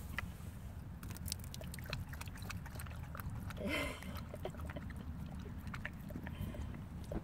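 New Zealand huntaway lapping water from cupped hands: a run of short wet clicks and slurps, with one louder, brief noise a little past the middle.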